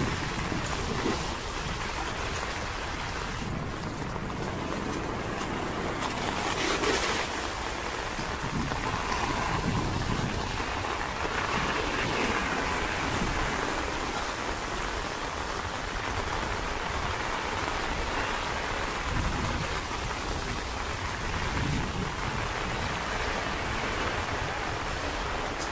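Choppy sea waves washing and breaking against a rocky shore, under steady rain. Gusts of wind rumble on the microphone now and then.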